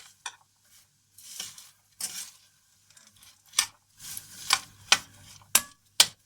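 Popcorn being stirred in a pot with a spoon to coat it with molasses: rustling swishes of the popcorn and sharp clicks of the spoon against the pot, the clicks coming more often in the second half.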